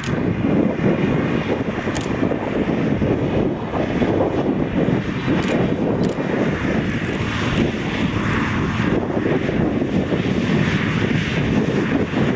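The ACO 600 Oubaas articulated tractor's V12 twin-turbo engine running loud and steady as it works in the field.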